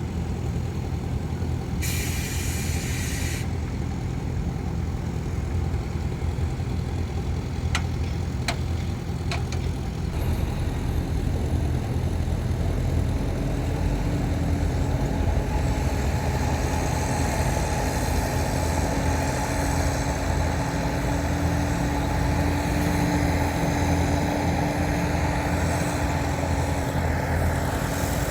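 Heavy diesel engines of earthmoving machinery, bulldozer and dump trucks, running with a steady low rumble. About two seconds in a short hiss of air sounds, a dump truck's air brake, and from about twelve seconds in an engine works harder, adding a louder, higher steady drone.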